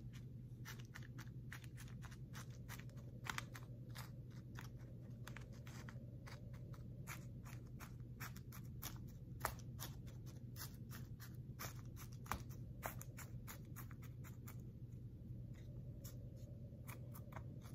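Faint, irregular small clicks and scratches of hands sowing seeds into a seed-starting tray, over a steady low hum.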